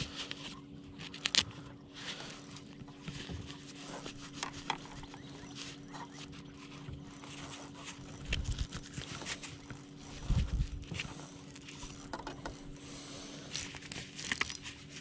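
Rustling and scraping as a fabric fishing glove is pulled on and its wrist strap is fastened, with scattered clicks and a couple of brief low thumps, over a steady low hum.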